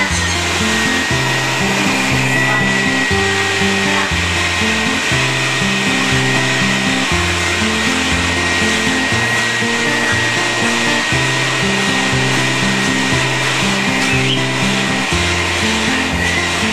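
A vacuum cleaner running steadily with a high whine, under background music with a repeating bass line.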